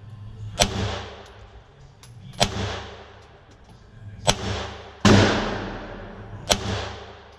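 Tanfoglio Combat Sport 9x19 pistol firing single shots about two seconds apart, each shot followed by a ringing tail. There are five shots in all; the loudest comes about five seconds in.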